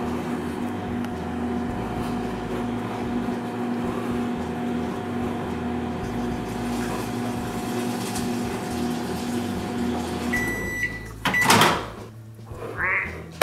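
Microwave oven running with a steady hum, then stopping about ten seconds in with a beeping signal that the cycle is done. A moment later its door is popped open.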